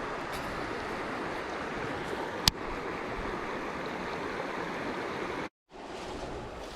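Creek water flowing steadily, with a single sharp click about two and a half seconds in. The sound cuts out briefly near the end.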